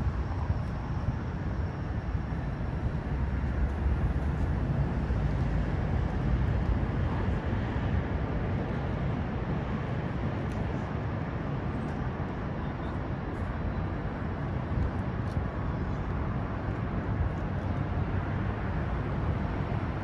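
Steady city background noise: a low rumble of traffic, with no distinct events standing out.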